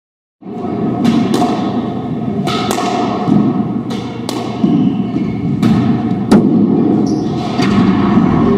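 Squash rally: sharp cracks of the ball off racquets and court walls at irregular intervals, about one a second, over steady hall noise. The sound cuts in about half a second in.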